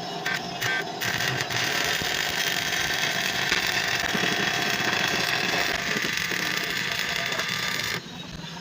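Welding arc crackling on sheet metal: a few short bursts about a second in, then one steady run that stops abruptly near the end.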